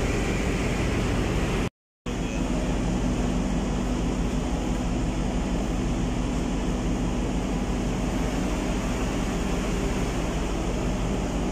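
Steady drone of ship's engine-room machinery and ventilation, with a steady low hum. It cuts out completely for a split second about two seconds in.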